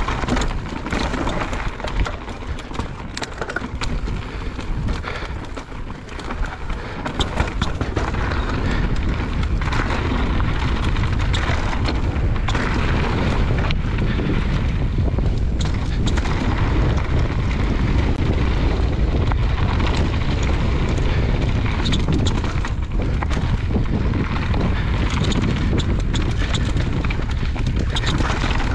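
Mountain bike ridden fast down a trail: wind buffeting the microphone over the tyres rumbling on the ground, with frequent knocks and rattles as the bike goes over bumps.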